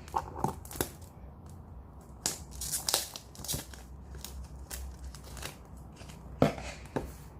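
Gift wrapping being handled and torn open: irregular crinkling and tearing with sharp crackles, the loudest about six and a half seconds in.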